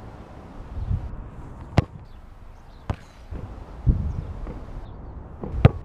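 A football kicked barefoot off sand, several times: three sharp thuds, the loudest near the end, with duller low thumps between.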